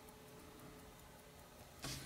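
Faint, even ticking of a running mechanical watch movement, about five ticks a second, with a brief rustling scrape near the end as steel tweezers work on the chronograph parts.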